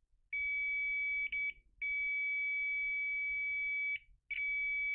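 Multimeter continuity beeper sounding a steady high beep, broken twice by short gaps: once for about a second, then for about two seconds, then again. The probes are on a resistor on the MacBook logic board that reads as connected directly to ground.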